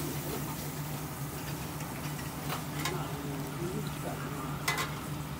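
Small restaurant's background sound: a steady low hum under faint voices, with a few light clicks like utensils or dishes, the sharpest one near the end.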